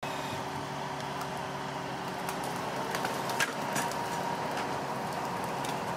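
A machine's engine running steadily, with a constant hum and a few scattered light knocks.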